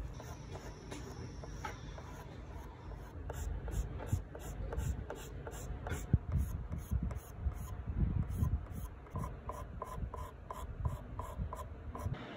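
Pastel pencil scratching across textured pastel paper in a run of quick, short strokes, drawing individual fur hairs; the strokes settle into an even rhythm of about three a second near the end.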